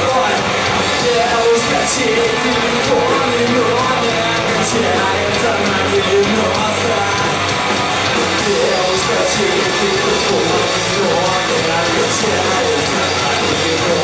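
Live rock band playing loud with electric guitars, bass and drum kit, the cymbals keeping a steady, fast beat.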